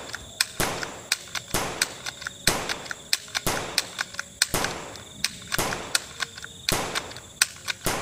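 Toy shotgun firing over and over, about one shot a second, each shot a sharp crack with a short hissing tail, with fainter clicks between the shots.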